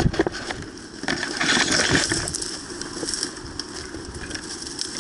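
Rustling and crunching with many short sharp clicks, densest from about one to two and a half seconds in.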